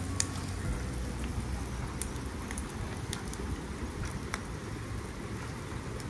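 Steady rain pattering, with a few light taps of cutlery on dishes.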